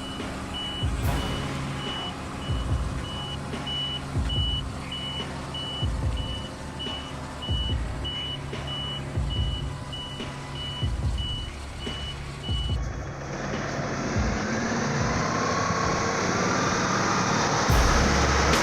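A heavy vehicle's reversing alarm beeping steadily, about two high beeps a second, over a running engine with regular low thumps. About thirteen seconds in the beeping stops abruptly, giving way to steadier engine noise with a slowly rising whine.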